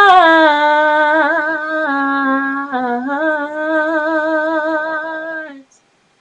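A woman singing a cappella: one long held note with vibrato, its pitch stepping down and back up in a few short runs, ending about five and a half seconds in.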